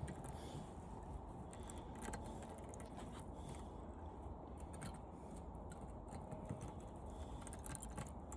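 Faint, scattered metallic clicks and scraping as the aluminum fins of an air-conditioner condenser coil are cut and pried off its copper tubes with a blade, over a steady low background hum.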